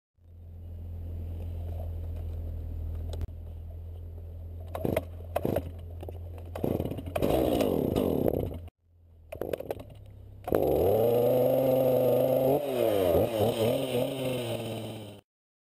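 A Stihl two-stroke chainsaw idles steadily, then gives a few quick throttle blips and revs that fall back to idle. In the second half it is held at high revs, loud, with the pitch dipping and wavering before it cuts off abruptly.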